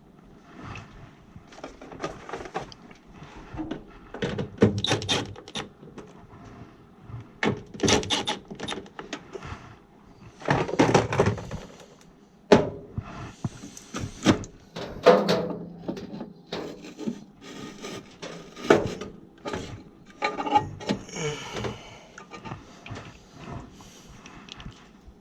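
Irregular knocking, clicking and rustling of hands handling tools and parts, in uneven bursts with short pauses between.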